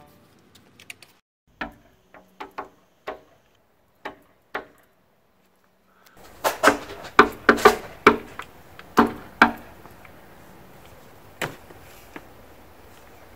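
Knuckles knocking on a house window: a few light, scattered knocks, then after a short pause louder rapid knocking in several bursts, and one last knock near the end.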